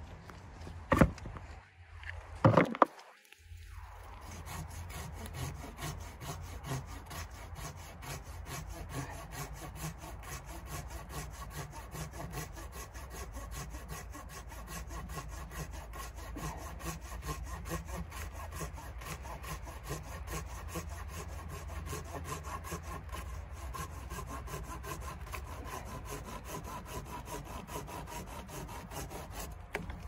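Hand pruning saw cutting through a fallen pine limb in steady back-and-forth strokes. Two sharp knocks come about one and two and a half seconds in, before the sawing starts.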